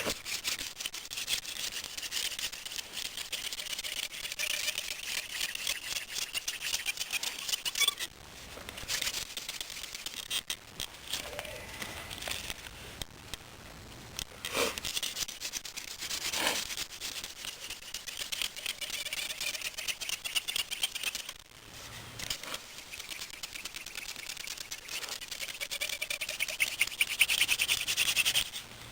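Cattail spindle twirled between the palms in the notch of a willow hearth board, a hand-drill fire attempt: a steady, fine rubbing friction in runs of several seconds, broken by short pauses, growing louder near the end.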